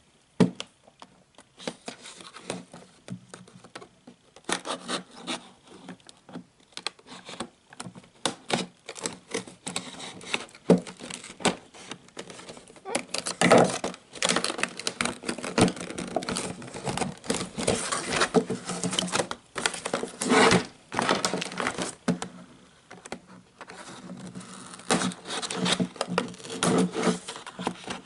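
Toy packaging being handled on a table: Littlest Pet Shop toy cans and a cardboard box knocked, slid and turned over, giving an irregular patter of clicks, knocks and crinkling. The loudest bursts come about halfway through and again about two-thirds of the way in.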